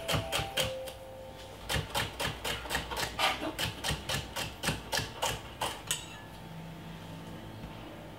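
Kitchen knife chopping celery on a wooden chopping board: quick knocks of the blade on the board, about four to five a second, with a short pause about a second in, stopping about six seconds in.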